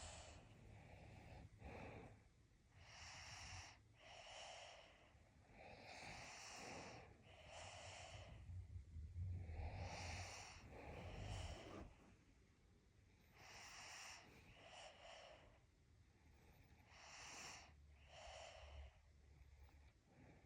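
A sleeping person snoring quietly. Slow breaths in and out repeat about every three to four seconds, and a few of them carry a low rumble.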